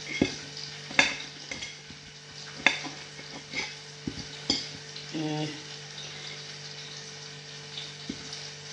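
Knife cutting sausage on a plate, the blade clicking against the plate several times at irregular intervals over a steady hiss and low hum. A short hum-like tone comes about five seconds in.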